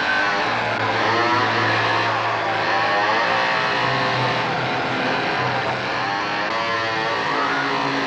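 Chainsaw running and revving, with a woman's screams wavering above it and partly drowned out by the saw.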